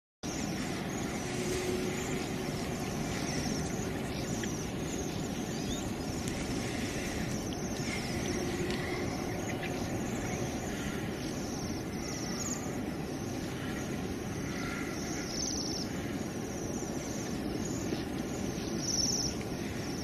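Steady outdoor ambience with a low rumble, over which a few faint, short high bird calls sound now and then.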